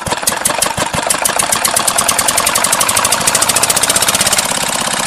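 Single-cylinder stationary engine chugging, its beat quickening over the first couple of seconds and then holding fast and steady.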